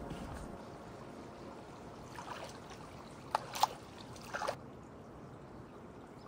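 Water running and trickling, with a few brief splashes or sloshes between about two and four and a half seconds in.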